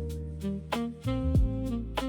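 Background instrumental music with a steady beat: melodic notes over a sustained bass line, with a kick drum.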